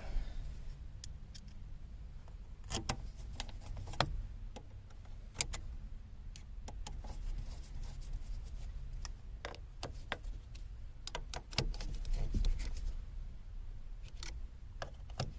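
Scattered light metallic clicks and taps from hand tools and small steel parts being worked on a car's steering column while the screws holding its plate are fitted and tightened.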